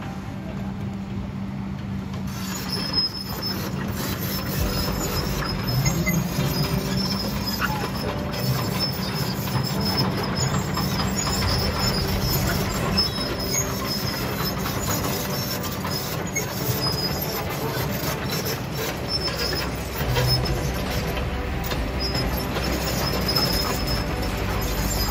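Kobelco SK200 hydraulic excavator working: its diesel engine running steadily under load, with a thin high squeal coming and going over the machine noise.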